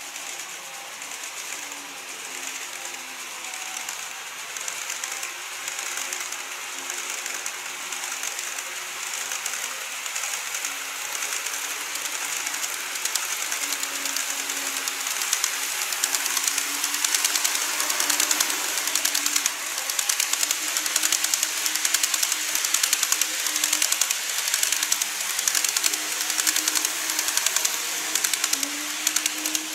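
Model E233 series 3000 electric train running on plastic viaduct track: a motor hum with fast, dense clicking of the wheels over the track. It grows louder as the train approaches and stays loud as it passes close by in the second half.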